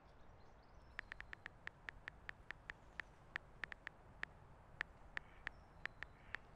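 An irregular run of short, sharp ticks, about three to four a second, starting about a second in, over faint background noise.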